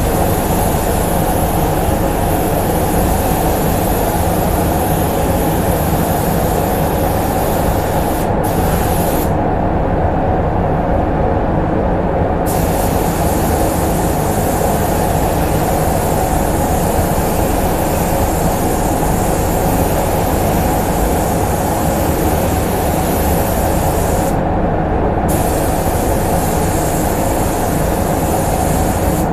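Compressed-air paint spray gun hissing in long passes, the hiss stopping briefly about eight seconds in, for about three seconds soon after, and for a second near the end as the trigger is let go. Under it, the paint booth's ventilation fans run with a steady hum.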